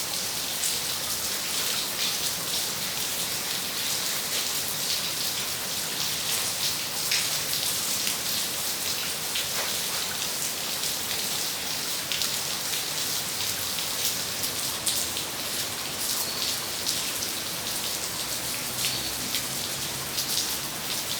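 Steady rain falling during a tropical storm: a continuous hiss of drops hitting surfaces.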